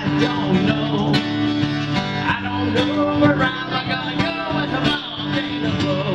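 Acoustic guitar strummed through chord changes, with a man singing along into a microphone.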